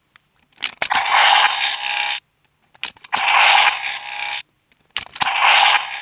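Zyuoh The Light toy playing its electronic sound effects through its small speaker: three bursts in a row, each starting just after a sharp click and lasting about a second and a half.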